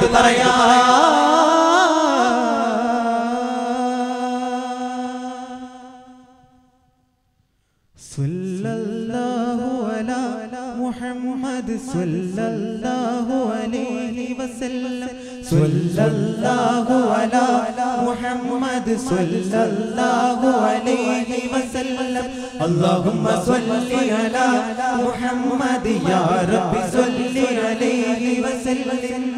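A daff troupe of boys chanting a devotional song in unison. A long held note fades away over the first six seconds, then there is a moment of silence, and the chant starts again with rhythmic strokes on the daff frame drums.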